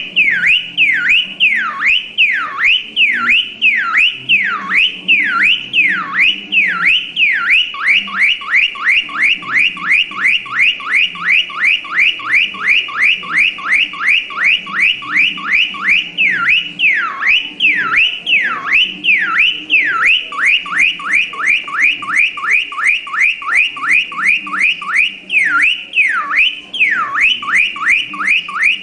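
Electronic car alarm siren cycling through its tones: slow rising-and-falling wails alternate with a fast chirping warble of about five chirps a second, then back to the slow wail.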